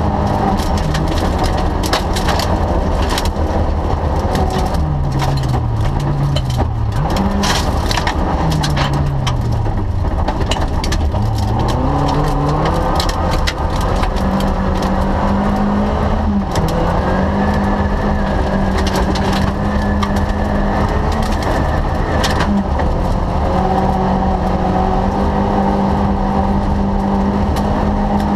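Rally car engine running hard at high revs, heard from inside the cabin, with the revs falling and climbing again several times between about five and twelve seconds in as the driver shifts gears. Gravel and stones crackle and rattle against the car's underside throughout.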